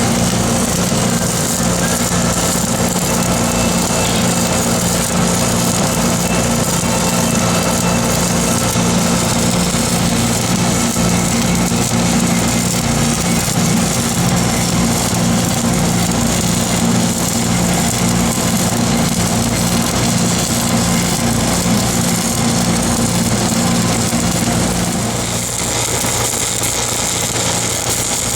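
Engine-driven welding machine running steadily, with a continuous crackling hiss over it that is typical of a stick (SMAW) welding arc. The sound eases off slightly near the end.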